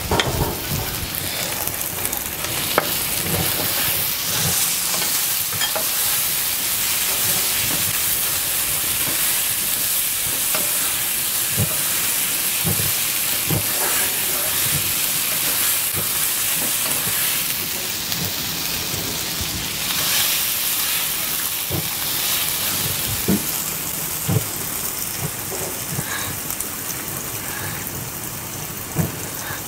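Julienned ginger sizzling in hot oil in a wok, with a steady hiss. It is stirred with a spatula that knocks against the pan every so often.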